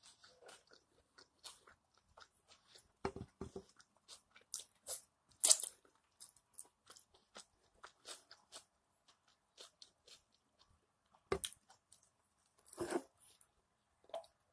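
Close-up mouth sounds of a person chewing steak: many small wet clicks and smacks, with a few louder crunchy clicks along the way.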